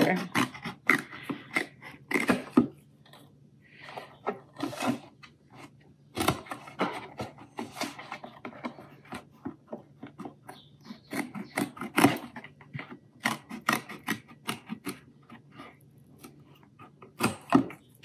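Scissors cutting through a paperboard juice carton: a run of short, irregular crisp snips with a few brief pauses.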